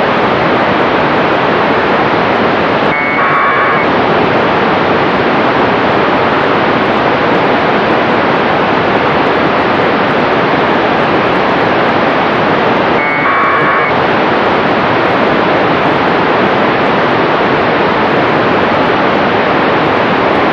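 Radio receiver static from the NanoSail-D2 CubeSat's 437.270 MHz beacon downlink. The steady hiss is broken by two AX.25 1200-baud packet bursts, each about a second of data tones, ten seconds apart; the hiss dips briefly as each packet comes in.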